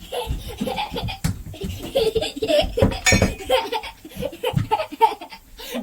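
A person laughing in repeated short bursts.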